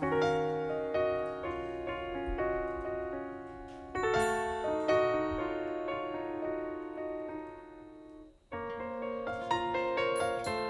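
Solo piano introduction to a song: chords struck and left to ring, fading away about eight seconds in, then after a short break a new phrase of chords begins.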